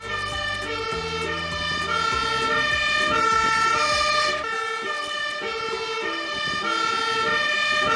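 Fire engine siren sounding in steady tones that switch back and forth in pitch, with the truck's engine running underneath for the first half.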